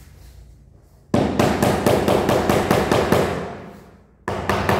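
Rubber mallet tapping rapidly on a large porcelain floor tile to bed it into the adhesive, about six taps a second. The run starts about a second in and fades away, and a second short burst of taps comes near the end.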